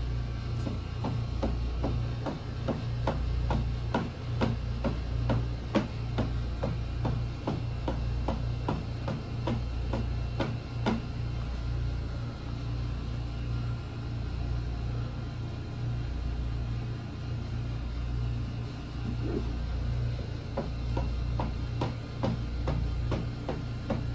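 Repeated sharp impacts of instep kicks (Kyokushin haisoku geri) striking a padded target, about two to three a second. They break off for several seconds in the middle, then start again.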